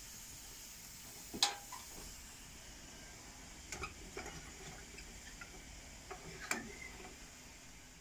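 Wood fire burning in a cook stove's firebox, a steady hiss with a few sharp cracks, the loudest about a second and a half in. Clicks come around four seconds in as a hand works the stove's door.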